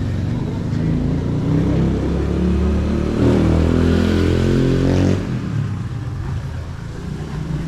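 A motor vehicle engine running close by, rising in pitch as it accelerates, then dropping away sharply about five seconds in.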